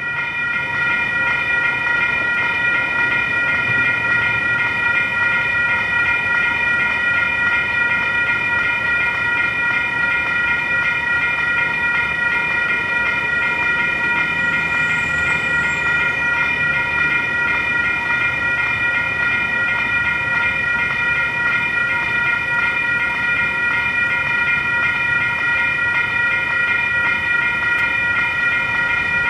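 Railroad grade-crossing warning bells ringing continuously as several steady, unchanging tones, the crossing signal activated for an approaching train.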